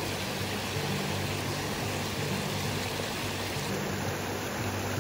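Forest creek rushing down a rocky, partly frozen cascade: a steady, even rush of water.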